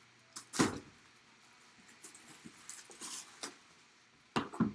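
Cardboard box being handled and opened: a sharp knock about half a second in, soft scraping and rustling of cardboard, then two quick knocks near the end as the lid comes off.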